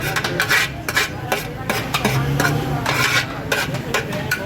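Metal utensils scraping and clinking against pots and dishes in quick, irregular strokes, with a low hum underneath.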